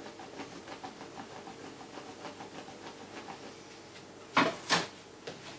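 Soft, repeated rustling and light ticking of homemade boilie dough balls being rolled in dry powder on a table. About four seconds in come two sharp knocks, the loudest sounds, followed by a smaller knock near the end.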